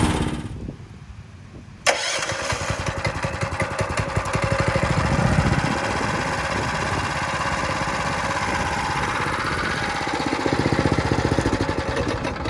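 Tillotson 212 single-cylinder four-stroke engine on a Trailmaster MB200 minibike. The engine sound cuts off about half a second in; after a short lull a sharp click comes near two seconds, and the engine runs steadily, growing louder a few seconds in and again near the end.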